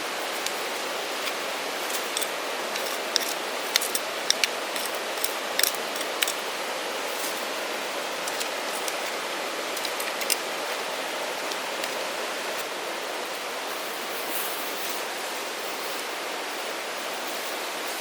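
Lumps of leftover campfire charcoal being moved into a fire-extinguishing bag, giving a string of sharp clicks and clinks in the first third and a few more later. They sound over a steady rushing noise.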